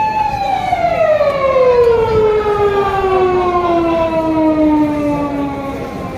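Emergency vehicle siren winding down: one long, loud wail that falls slowly and steadily in pitch and dies away near the end.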